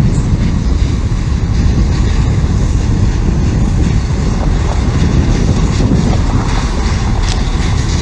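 A rail vehicle passing close by: a loud, steady rumble with faint ticks, and wind buffeting the microphone.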